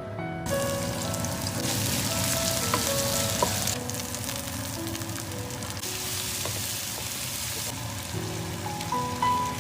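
Food sizzling as it fries in a hot pan, starting about half a second in, with a few clicks of utensils, over background music.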